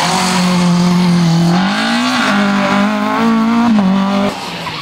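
Rally car's four-cylinder engine running at high revs, its note held steady, then climbing about two seconds in. It steps down twice near the end and falls away, leaving a quieter sound.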